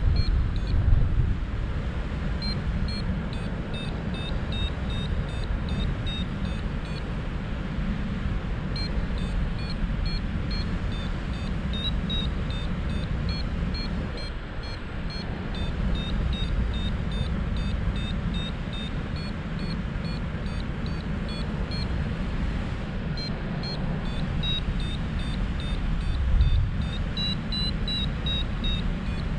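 Wind rushing over the microphone in paragliding flight, with a flight variometer beeping in quick runs of short high tones whose pitch steps up and down, the vario's signal that the glider is in rising air.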